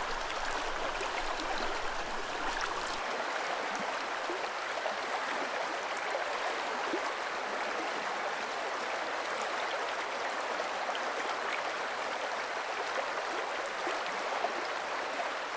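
Fast river water rushing steadily over riffles and rocks.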